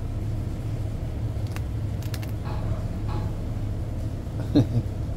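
A dog gnawing a dried lamb-ear chew held in a hand: a few faint clicks of teeth on the tough treat, over a steady low machinery hum. A brief squeak comes near the end.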